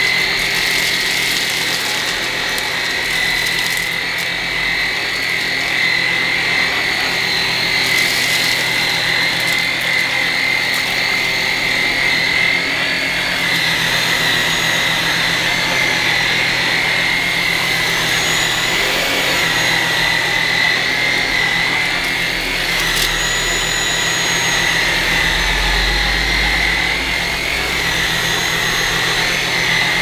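Tineco Pure One S12 cordless stick vacuum running on carpet: a steady high-pitched motor whine over the rush of suction as the powered brush head picks up porridge oats and sawdust. In auto mode the suction steps up as it senses the heavy dirt.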